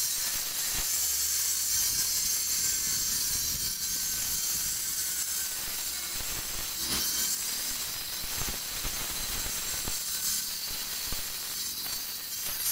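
Electric angle grinder working on a carved white stone elephant: a steady hiss with a faint high whine and a few light knocks.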